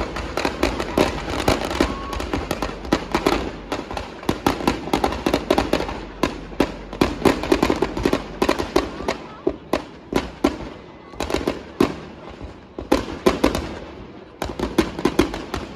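Firecrackers packed into burning Dussehra effigies going off in rapid runs of sharp bangs, several a second, with short lulls about eleven seconds in and near the end.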